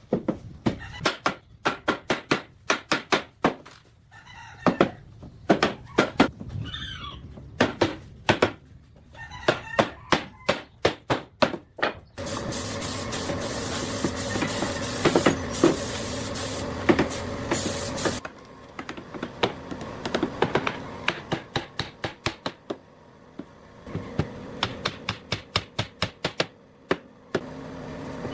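Clusters of rapid, sharp taps and knocks. About twelve seconds in, a small power tool runs steadily with a faint hum for about six seconds, then stops, and the rapid tapping resumes.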